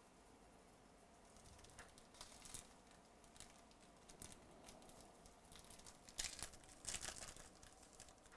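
Foil wrapper of a baseball card pack torn open and crinkled as the cards are pulled out: faint rustling, with louder crinkling about six seconds in.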